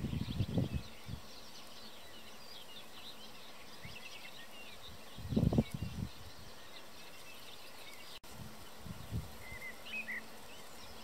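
Background birdsong: many small birds chirping and twittering. Bursts of low rumble hit the microphone in the first second, again more loudly about halfway through, and briefly near the end.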